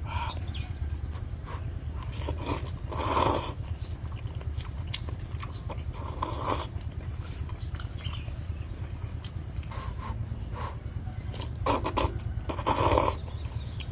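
Person eating hot, spicy instant noodles: a few short, noisy mouth and breath sounds about three, six, twelve and thirteen seconds in, over a steady low hum.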